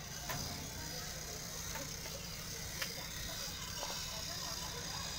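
Battery-powered toy trains running along a plastic track, their small motors whirring steadily, with two sharp clicks.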